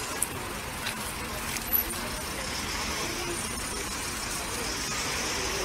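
Street ambience: a steady hum of road traffic with faint voices of onlookers and a couple of brief knocks in the first two seconds.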